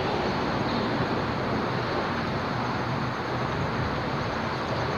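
Steady rumble of road traffic on the highway bridge overhead, heard from underneath the deck.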